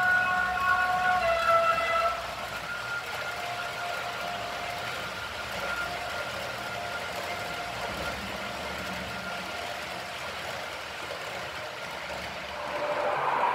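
H0-scale model electric trains running over a model bridge. A two-tone train horn sounds for about the first two seconds. After that the steady running noise of the models on the track continues, with a faint intermittent tone, until the sound swells again near the end.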